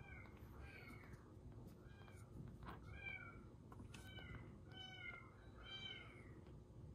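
A very young kitten mewing: about eight short, high mews, roughly one a second, each rising and falling in pitch. Each mew is quiet.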